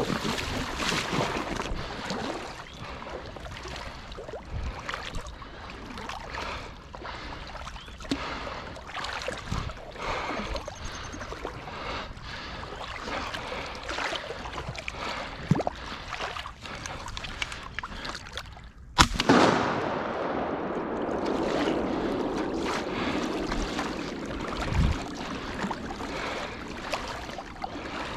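Water sloshing and splashing with scattered knocks and handling bumps; about two-thirds of the way through the sound breaks off and gives way to a louder, steadier rush of moving water.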